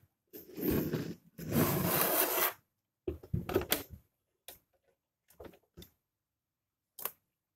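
Rubbing and scraping as a Goldstar CRT television's circuit board is handled and turned over, lasting about two and a half seconds. A few short knocks and taps follow from about three seconds in.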